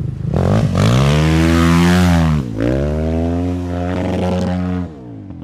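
Husqvarna FS450 supermoto's single-cylinder four-stroke engine revving hard under acceleration: the pitch climbs and holds, dips sharply about two and a half seconds in, climbs again, then falls away just before the end.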